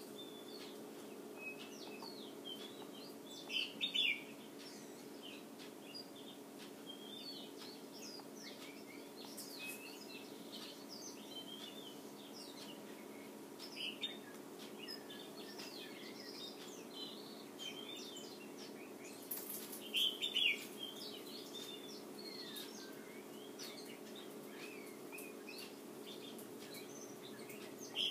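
Small songbirds chirping and calling in quick, varied notes, louder in short flurries about four seconds in, around twenty seconds, and at the very end. A steady low hum runs underneath.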